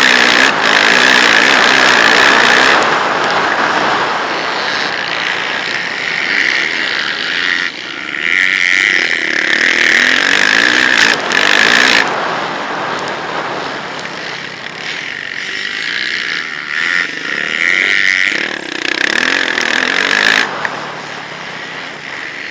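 Motocross bike engine revving hard and easing off as the rider throttles along a dirt track, heard from the rider's helmet. It swells loud in several long spells and drops back between them.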